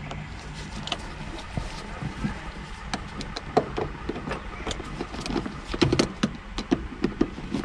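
Irregular small clicks and taps of a screwdriver and plastic trim fittings being worked loose by hand at the car's headliner, coming thickest in the second half, over a steady low hum.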